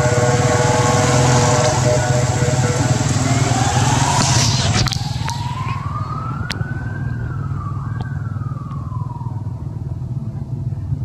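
Passing motor traffic: a steady low engine hum with hiss, a few seconds of steady engine tones, then one engine whose pitch rises and falls in two long swells.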